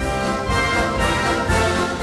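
Background orchestral music with brass, a steady beat and held notes.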